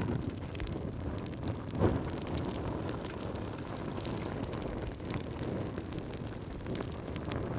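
Wood fire burning in a fireplace: a steady low rumble of the flames with many small crackles and one louder pop about two seconds in.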